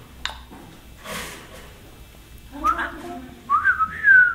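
African grey parrot vocalizing: a sharp click and a breathy hiss, then a short talking-like utterance and, loudest, a whistle that slides up and down near the end.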